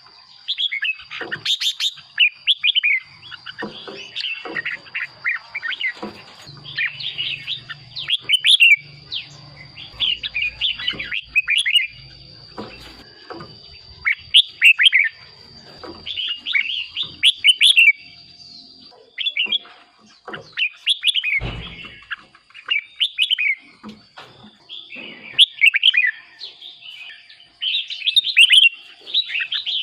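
Red-whiskered bulbul singing short, quick, warbling phrases one after another with brief pauses, over a faint steady high tone.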